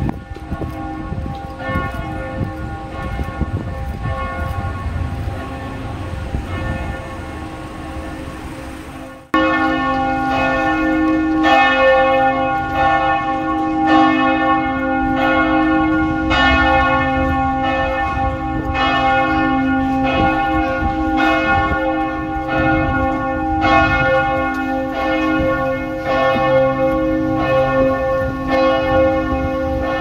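Church bells ringing in a peal, several bells struck over and over, each stroke leaving a long ringing tone. The sound gets abruptly louder about nine seconds in.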